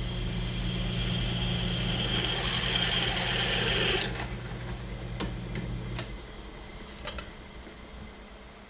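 Electric drill running as its bit bores through a metal plate, a steady motor hum under a grinding cutting noise. The cutting noise stops about four seconds in and the motor hum cuts out about two seconds later, followed by a few light clicks.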